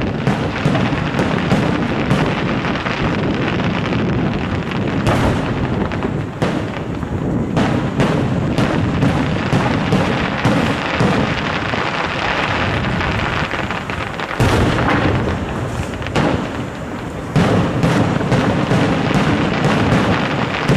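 Aerial firework shells bursting in a dense, continuous barrage. Sharp cracking reports come every second or so over a steady rumble. The level dips a little past the middle, then rises again with heavy bursts near the end.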